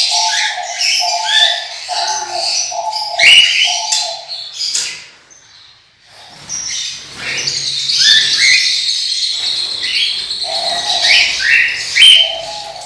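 A flock of small pet parrots such as lovebirds chirping and squawking busily, with short high calls overlapping throughout. A lower call repeats about twice a second for the first few seconds and again near the end, and the chattering drops away briefly around the middle.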